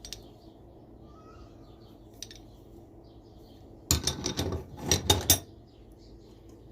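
Steel hand tools clinking and clanking against each other as they are handled and set down: a faint tick or two, then about four seconds in a short burst of several quick metallic knocks and rattles.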